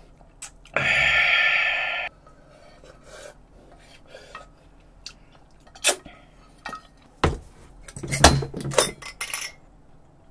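Wooden spoon and chopsticks scraping and clinking in an earthenware bowl, with a loud rasping sound lasting just over a second near the start. Then come scattered knocks as the heavy bowl is handled and set down on the table, with a cluster of louder knocks late on.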